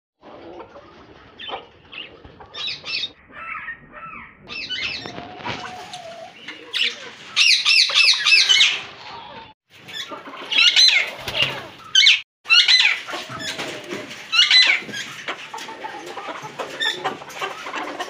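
Many caged birds calling together: repeated high, looping chirps and squawks over lower calls and scattered clicks. The sound drops out briefly about ten and twelve seconds in.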